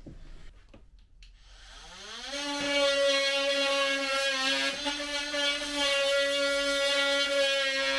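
A small handheld power tool's motor spins up with a rising whine about two seconds in, then runs steadily at a high pitch as it shaves out the inside edge of the hole in the floor so the PVC drain pipe can pass straight down.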